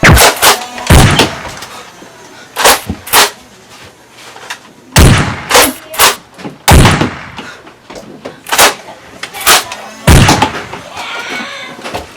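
A series of about fifteen loud, sharp bangs and thuds at irregular intervals, some in quick pairs.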